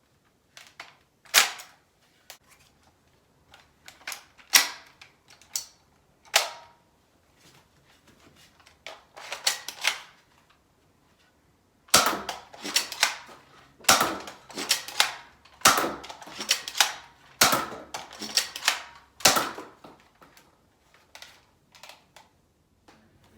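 Nerf Spectre Rev-5 blaster being primed and fired over and over: sharp plastic snaps of the shots with smaller mechanism clicks between them. A few spaced shots come first, then about halfway through a quicker run of loud shots, roughly one a second.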